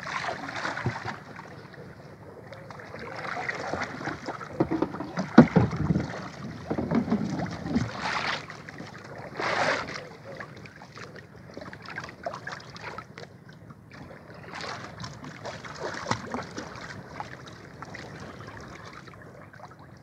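Water splashing and lapping at the side of a small outrigger boat as a hand-line is worked over the side, with wind on the microphone. A run of louder splashes comes in the middle.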